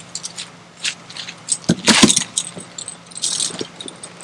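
Clicks and light rattles of small hard plastic parts being handled, such as the kayak's valve caps and pump fittings, with a louder clatter about two seconds in. A faint steady hum runs underneath.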